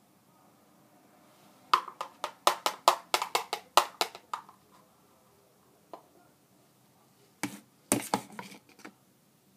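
A big metal spoon clattering against a bowl while scooping: a quick run of about a dozen sharp taps, one more a little later, then a short cluster of taps near the end.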